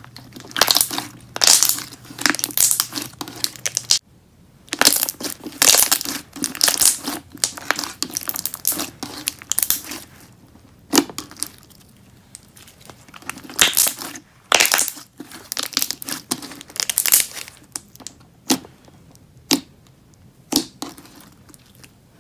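Thick, glossy slime being squished, stretched and pressed by hand: a long run of irregular crackly squelches, with a few sharp bubble pops toward the end.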